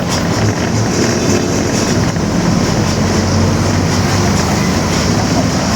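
Mercedes-Benz OF-1721 BlueTec 5 bus with its diesel engine running steadily under way, heard from inside the bus, and its rear differential growling.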